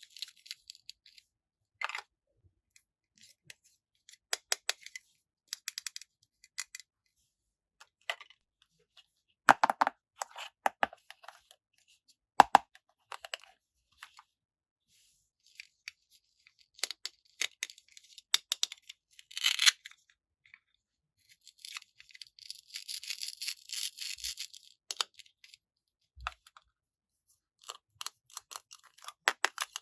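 Toy packaging being handled and opened by hand, with scattered sharp clicks, knocks and crinkles of plastic and paper. A longer rustling, tearing stretch begins about two-thirds of the way through and lasts a few seconds.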